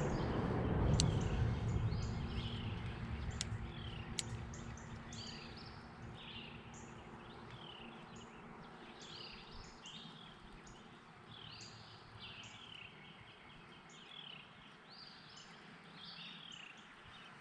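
A small bird singing short, high, downward-sliding chirps over and over, about one or two a second, over a low outdoor rumble that fades away in the first few seconds. A few sharp ticks sound in the first four seconds.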